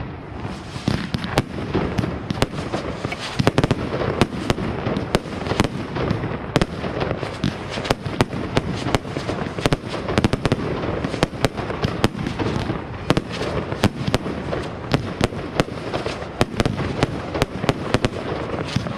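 Fireworks going off in a dense, continuous barrage: many sharp bangs and crackles every second over a steady rumble.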